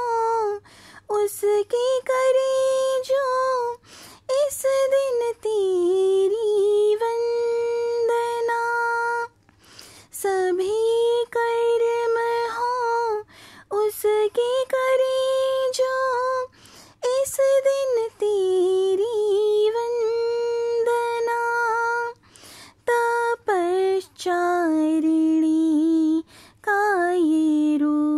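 A woman singing a Hindi devotional bhajan in long held, gliding notes. Only a single voice is heard, with short silences between phrases.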